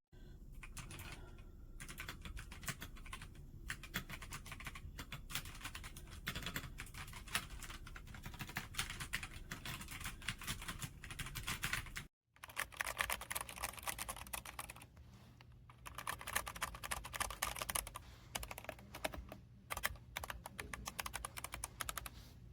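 Fast, continuous typing on a Redragon K556 mechanical keyboard with tactile brown switches: a dense clatter of key clicks, broken once by a brief gap about halfway through.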